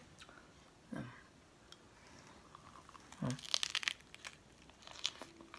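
Close-miked bite into a pizza slice topped with fresh lettuce: a short burst of crisp crunching about three and a half seconds in, with a few more crunches near the end. Two brief hums from the eater come before it.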